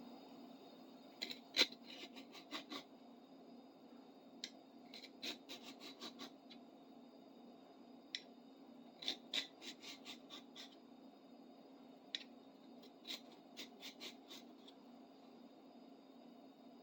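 Metal hand file scraping a steel screwdriver tip in short, quick strokes, faint, coming in bursts of several strokes with pauses between. A steady low hum runs underneath.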